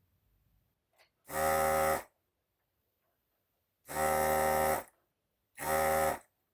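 Electric desoldering tool's vacuum pump buzzing in three short bursts, each triggered to suck molten solder off a component lead being removed from a circuit board.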